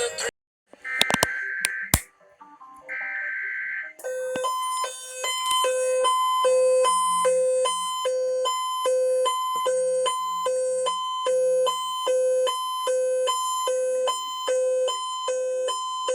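Emergency Alert System broadcast signal: two one-second bursts of shrill warbling digital header data tones, then from about four seconds in an electronic alert tone switching between a low and a high pitch about twice a second, repeating steadily.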